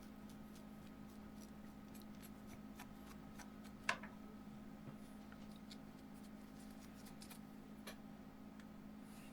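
Faint scattered clicks and ticks over a steady low electrical hum, with one sharper click about four seconds in.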